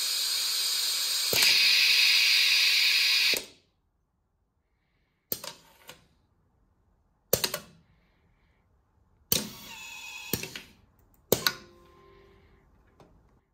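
Pneumatic assembly station at work: compressed air hisses loudly and steadily, then cuts off about three and a half seconds in. After that, pneumatic cylinders and valves actuate with sharp clacks about two seconds apart, and a small electric screwdriver motor runs briefly about ten seconds in to drive the screw.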